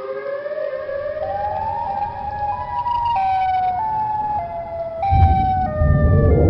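Horror sound effect: a siren-like wail of several tones rising slowly in pitch, then falling in short steps, with a deep rumble swelling in about five seconds in.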